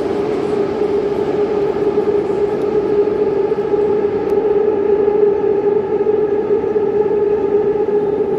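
Madrid Metro train running with a steady whine that holds one pitch, over the rumble of the train.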